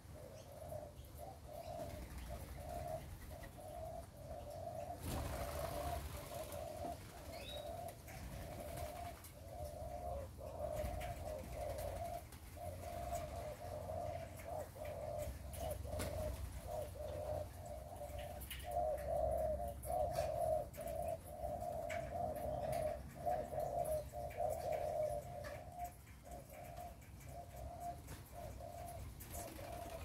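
Doves cooing steadily, several overlapping in a continuous pulsing chorus, with a brief rush of noise about five seconds in and scattered faint clicks.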